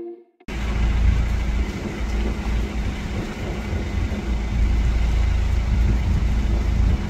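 Wind buffeting the microphone: a loud, wavering low rumble that starts suddenly about half a second in, with a faint steady hum beneath it.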